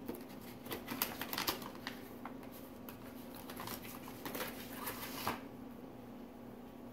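Clear plastic marker case being handled, with a run of light plastic clicks, crackles and rattles that stops about five seconds in.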